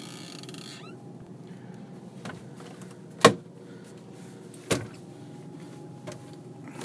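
Two sharp knocks about a second and a half apart, as of a wooden louvered cabinet door being handled, with a couple of lighter clicks, over a steady low background hum.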